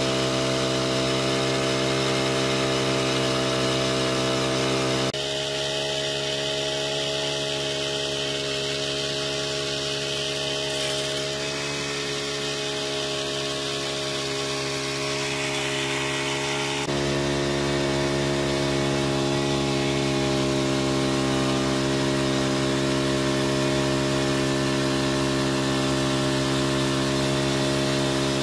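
Small four-stroke petrol engine of a power sprayer running steadily at constant speed, driving the piston pump. Its tone changes abruptly twice, about five and seventeen seconds in.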